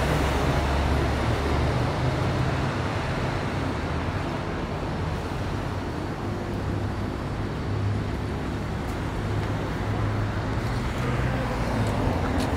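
Road traffic: the low engine hum of a heavy-haul trailer truck carrying a railcar fades as it pulls away. Other vehicles then pass, one van passing close near the end.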